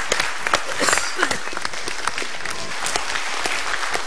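Studio audience applauding, a steady patter of many hands clapping, with a voice faintly heard over it about a second in.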